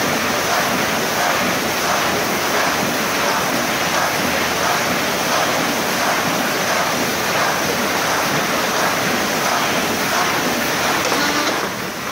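A 1981 Bobst SP 102 E flatbed die-cutting press running in production, making a loud, steady mechanical din as its gripper bars deliver cut sheets onto the pallet. The noise dips briefly near the end.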